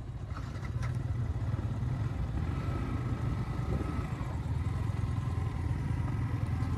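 Motorcycle engines idling and running slowly with a steady low rumble.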